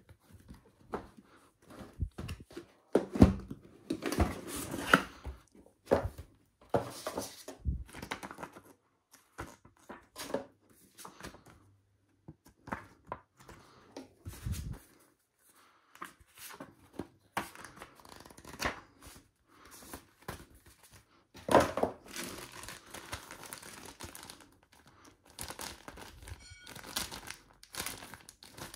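Power supply packaging handled by hand: irregular crinkling and rustling of plastic and cardboard, with a few soft knocks. Louder bursts come about three seconds in and again past the twenty-second mark.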